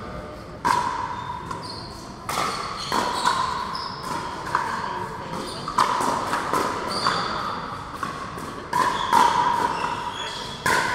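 Pickleball rally: paddles striking the plastic ball in a quick exchange, about ten sharp pops at uneven intervals, each echoing briefly in a large hall.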